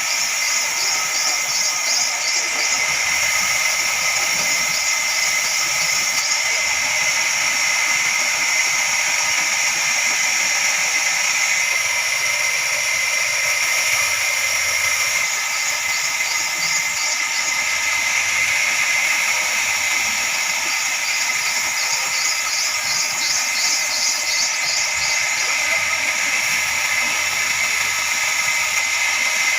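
Heavy-duty horizontal band sawmill running with its blade cutting through a log: a steady, high-pitched hiss with a constant whine.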